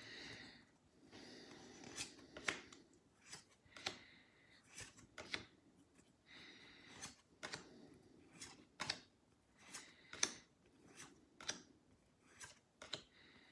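Pokémon trading cards being handled one by one: a quiet run of short card snaps and soft sliding rustles, about one every half second to a second, as each card is slid off the front of the stack and tucked behind.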